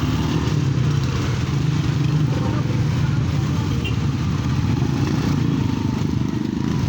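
A motorcycle engine running steadily at idle: an even low rumble with a fine rapid pulse.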